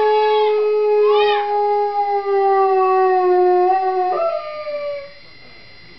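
Doberman howling one long, held note that sinks slightly. About four seconds in it jumps to a higher note, then stops about a second later.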